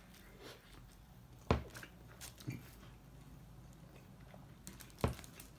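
Person chewing a mouthful of a grilled French tacos wrap, quiet mouth sounds with two sharp smacks or clicks, one about a second and a half in and one near the end.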